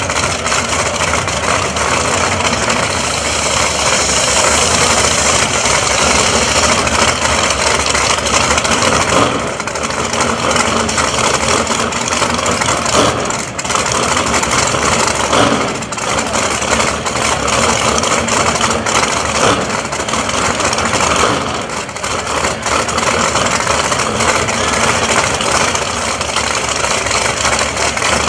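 Drag-race car engines idling loudly.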